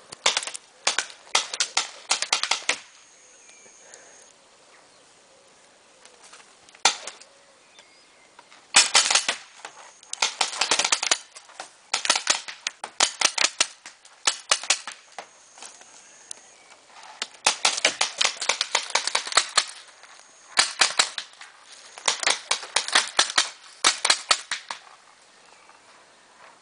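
Paintball markers firing in rapid volleys of several shots a second, with pauses of a few seconds between volleys and one single shot in a lull.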